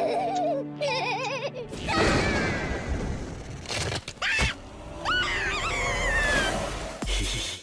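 Cartoon sound track: an animated larva's warbling, squeaky gibberish vocalizing, then a wavering scream as it falls off a cliff. Under it runs a rushing noise, with a thud about four seconds in and a low splash near the end.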